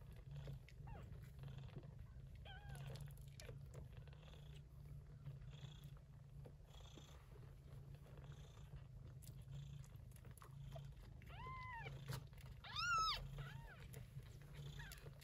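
Steady purring from a shorthaired Persian chinchilla cat, with a few high, short kitten mews that rise and fall: a faint one about two and a half seconds in and two louder ones near the end, the second the loudest.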